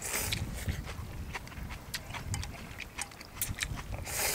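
People eating noodle soup, slurping and chewing, with scattered sharp clicks of chopsticks and spoons against bowls. A hissy slurp comes at the start and another near the end.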